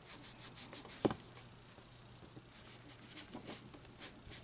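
Faint scratchy rubbing and dabbing of an ink sponge on a cardstock petal, with one short tap about a second in.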